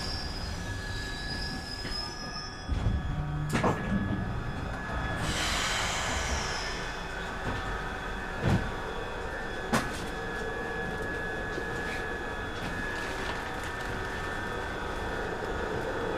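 Glasgow Subway train running, with a steady whine and rumble, high wheel squeals near the start and again about five seconds in, and a few sharp knocks about three and a half, eight and a half and ten seconds in.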